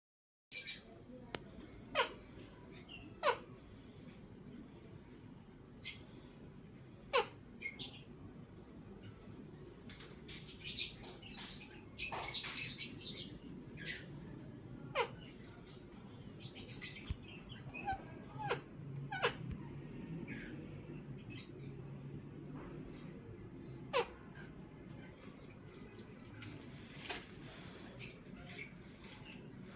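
Steady high-pitched insect chirring throughout, with short, sharp bird calls that fall steeply in pitch, about ten of them a few seconds apart.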